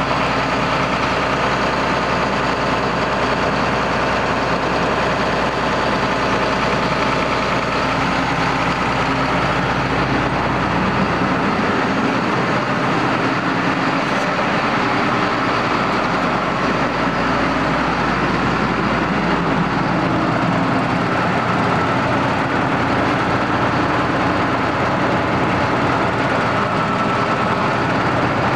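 A John Deere 9600 combine's diesel engine and threshing machinery running steadily while harvesting wheat.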